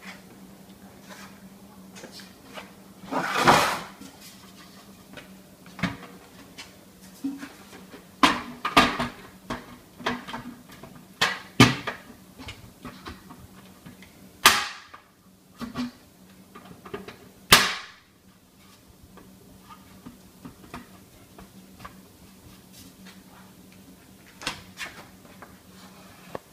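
Metal collection canister being fitted onto a Husky Storm central vacuum power unit: a series of clunks, scrapes and clicks as it is pushed into place and its plastic side latches are worked, with two sharp snaps about two-thirds of the way through.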